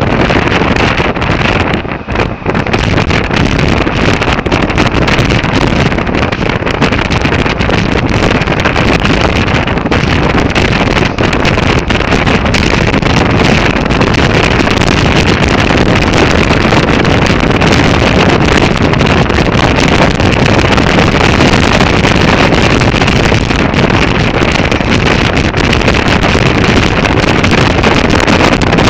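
Loud steady wind rush on the microphone of a camera on a moving motorcycle, with the bike's running noise under it. It dips briefly about two seconds in.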